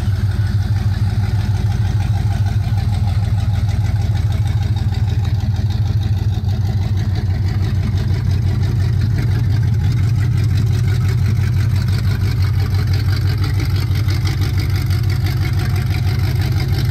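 Big-cam Corvette V8 swapped into a 1966 Chevrolet C10, idling steadily.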